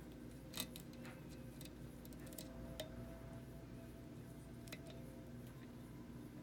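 Faint, scattered metallic clicks and ticks of a lock pick working the pin stacks of a lock cylinder under tension during single-pin picking. The sharpest clicks come about half a second in and near three seconds.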